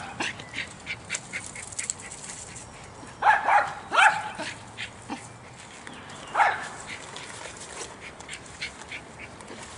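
Small terrier barking three times: two barks close together about three to four seconds in and one more about six and a half seconds in. Between the barks there are light clicks and rustles from tent clips and nylon fabric being handled.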